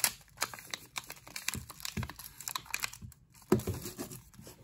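Hands turning over a paper-wrapped firework cake: the wrapper crinkles and rustles with small clicks, and the cake is set down on a wooden shelf with a thump about three and a half seconds in.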